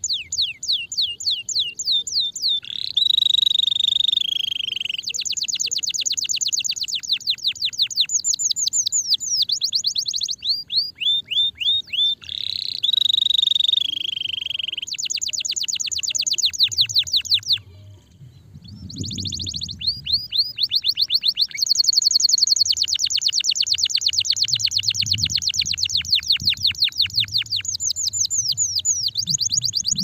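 Domestic canary singing a long, loud song of fast trills made of rapidly repeated downward-sweeping notes, twice broken by a longer held note, with a brief pause about eighteen seconds in.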